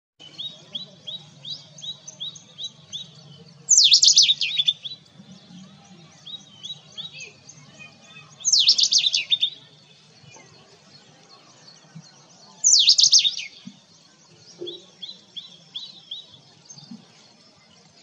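Male Indian robin singing its courtship song: three loud, rapid phrases about four to five seconds apart, each lasting about a second, with fainter short repeated notes in between.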